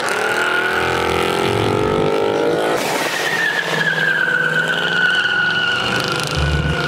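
Car engine accelerating hard on a drag run: the revs climb, there is a gear change about three seconds in, then a high engine note that slowly falls in pitch as the car pulls away.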